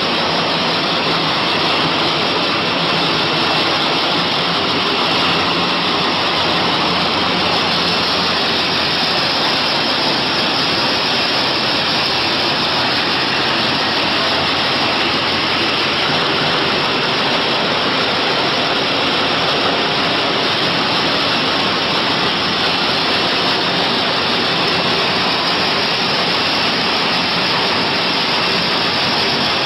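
Steady mechanical din of a hall of high-speed automatic flow-wrap packaging machines running together, with no single beat standing out.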